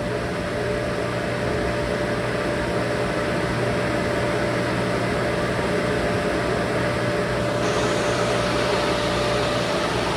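FMC M10000 aircraft ground air-conditioning unit running steadily: a continuous blower rush with a low hum and a faint steady whine.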